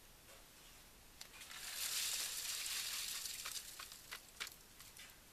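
Wet concrete sliding out of a tipped plastic bucket into rebar formwork: a slushy hiss that builds, holds for about two seconds and fades, followed by a few sharp knocks.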